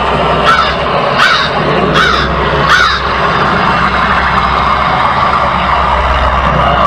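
Crow cawing: four harsh caws in quick succession in the first three seconds, over a steady, loud background drone.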